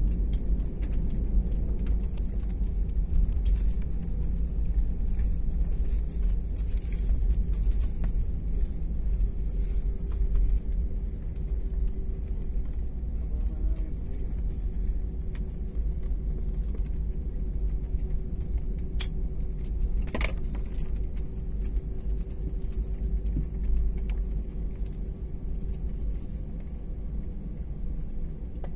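Cabin rumble of an Airbus A320-family jet rolling out on the runway just after touchdown, ground spoilers up: a steady low rumble of wheels and engines that slowly eases as the aircraft slows. A short click or two sounds about two-thirds of the way through.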